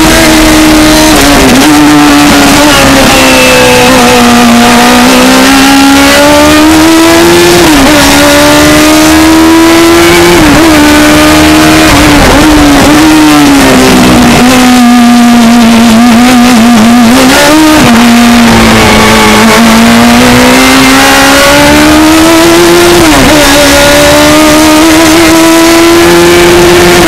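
Open-cockpit racing car's engine heard loud from on board, its pitch rising and falling repeatedly as it accelerates and slows for bends, with a few quick dips at gear changes.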